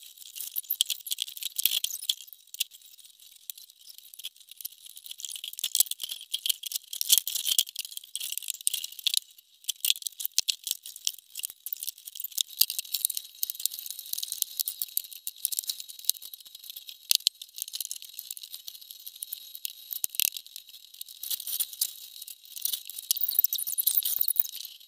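Wallpaper being scraped and torn off a wall: dense, irregular crackling and scratching.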